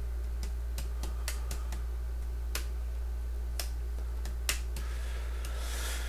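Scattered single keystrokes on a computer keyboard: about a dozen sharp, separate clicks at an unhurried pace, over a steady low electrical hum. A brief soft hiss comes near the end.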